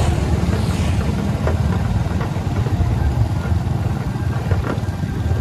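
A vehicle engine running steadily: a continuous low rumble with no change in pace.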